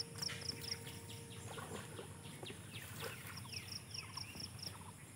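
Birds chirping in short falling calls, with a fast run of about eight high repeated notes heard twice, at the start and again past the middle.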